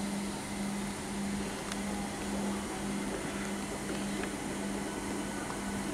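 ICF Medha electric multiple unit train at the platform, its electrics giving a steady low hum with a slight regular pulsing over a hiss of background noise.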